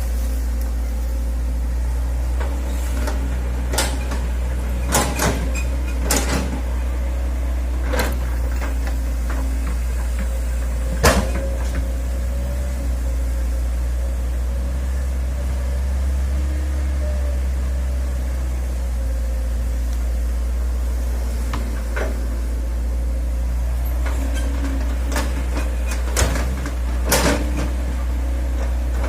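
Hitachi excavator's diesel engine running steadily, with sharp clunks and knocks breaking in now and then, the loudest about eleven seconds in.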